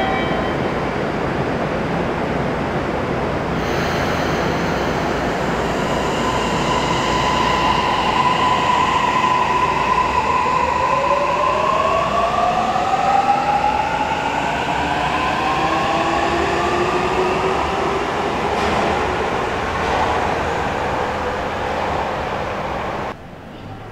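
Toei Mita Line 6500-series train pulling away, its Mitsubishi hybrid SiC VVVF inverter whining over the running noise. The whine holds one steady tone, then splits into several tones rising in pitch as the train gathers speed, and cuts off abruptly near the end.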